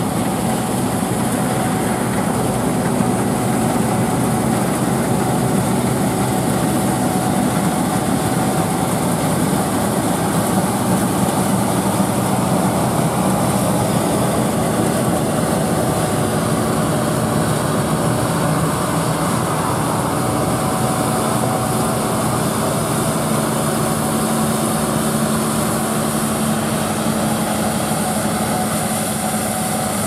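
New Holland CS6050 combine harvester at work, its diesel engine and threshing machinery running in a steady drone with a constant whine over it. It gets a little fainter near the end.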